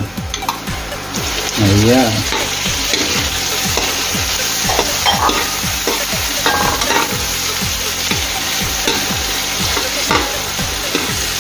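Tomato wedges sizzling in hot oil in a wok with sautéed ginger, onion and garlic, stirred with a metal ladle. The sizzle starts about a second in and stays steady, with a few light scrapes and knocks of the ladle against the pan.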